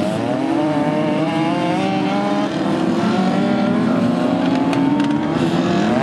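A Legends race car's Yamaha four-cylinder motorcycle engine running hard on the track, its pitch climbing steadily as it accelerates. Near the end the pitch drops briefly, then rises sharply again as the throttle comes back on.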